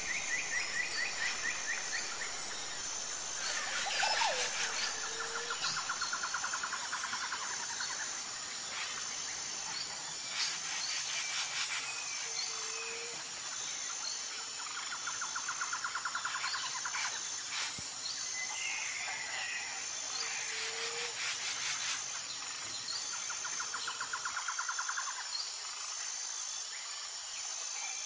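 Outdoor nature ambience: a steady high insect drone with bird trills and chirps recurring every few seconds.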